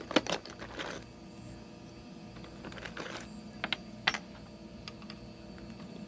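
Small screws clicking and rattling in a plastic tub as a hand rummages through them, with a quick cluster of clicks near the start and a few separate sharp clicks later.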